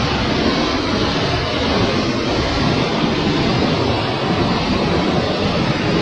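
Steady roar of a broad waterfall in flood, its water swollen by days of heavy rain.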